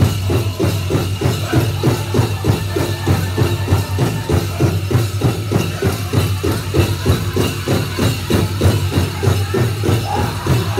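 Powwow drum group playing a Chicken Dance song: a large bass drum struck in a fast, even beat, about four to five strokes a second, under the singers' voices. Dancers' bells jingle along with it.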